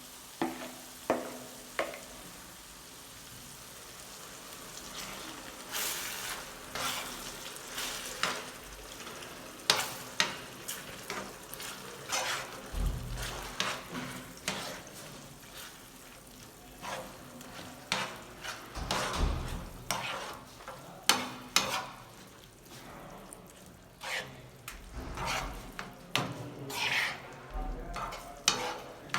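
Minced meat frying and sizzling in a pan while a sauce is poured in and stirred through, the stirring utensil knocking and scraping against the pan many times.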